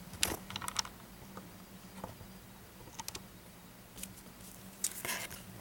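Handling noise: a few scattered light clicks and rustles as something is adjusted by hand, over a faint steady hum.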